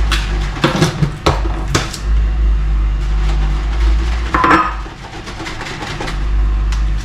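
Clinks and knocks of a utensil against a container while whey protein powder is mixed with water: a few sharp knocks about a second in and another cluster past the middle, over a steady low hum.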